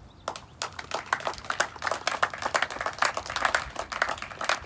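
Audience applauding: a round of many hands clapping that starts just after the beginning and stops near the end.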